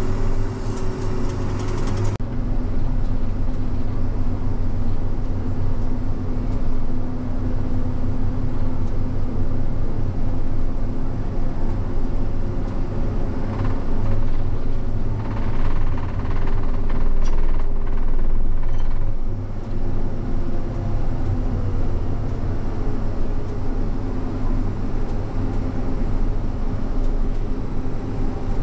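A vehicle under way: a steady low engine drone with road noise, no pauses or sudden events.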